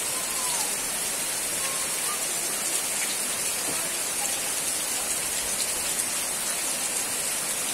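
Steady rain falling on leafy garden plants and puddled ground.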